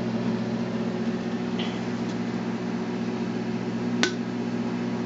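Microwave oven running with a steady hum, with a faint pop about one and a half seconds in and a sharp pop about four seconds in: popcorn kernels starting to pop.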